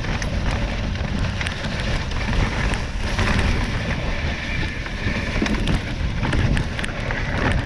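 Steady noise of a dog sled's runners gliding over a packed snow trail, with low wind noise on the microphone and scattered small clicks.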